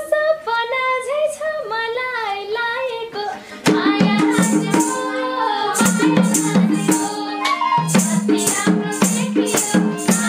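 Nepali dohori folk song: a woman sings the closing phrases of a line for the first few seconds. Then the instrumental music comes in, with percussion keeping a quick, steady beat under sustained melody notes.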